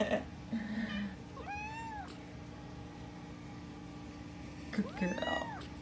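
Black-and-white tuxedo cat meowing twice, each meow rising then falling in pitch, one about a second and a half in and one near the end: a cat asking for food.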